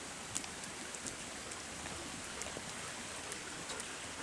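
Steady hiss of water pattering on wet foliage, with scattered sharp ticks of single drops.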